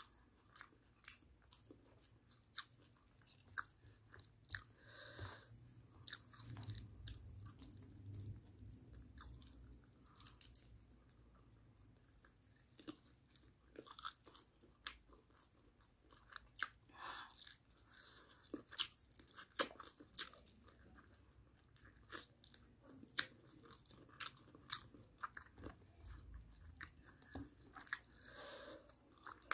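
A person chewing barbecued chicken and rice, with many short, sharp mouth clicks and smacks throughout.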